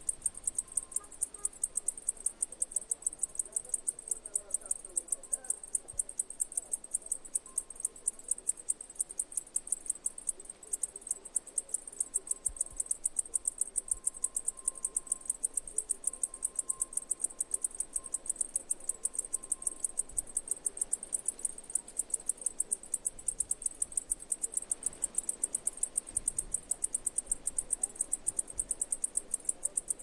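Cicada calling: a high-pitched buzz made of fast, evenly spaced clicking pulses, steady throughout.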